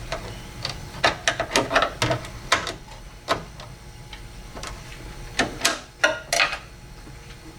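Irregular clicks and taps of window regulator parts being handled and fitted inside a VW Passat B5 door, about a dozen sharp clicks spread unevenly, with a few longer rattling scrapes near the end.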